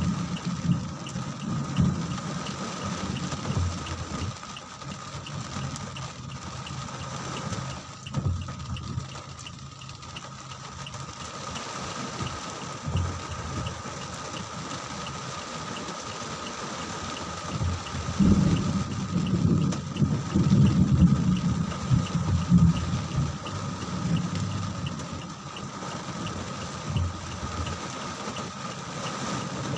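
Rain falling steadily. There are low rumbles in the first couple of seconds and again from about 18 to 23 seconds in, and a faint steady high tone throughout.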